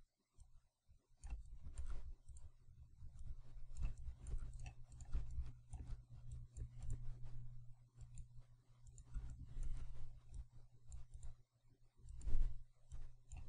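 Irregular computer mouse clicks, often several a second, as anchor points are placed one after another with Photoshop's pen tool. A low steady hum runs underneath.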